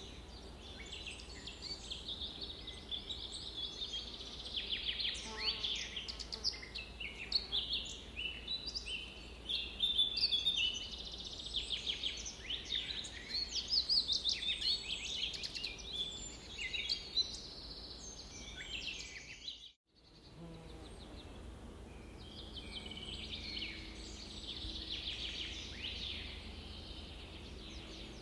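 A chorus of songbirds chirping and trilling, many quick high calls overlapping. The sound cuts out for a moment about twenty seconds in and comes back as a softer, more even chorus.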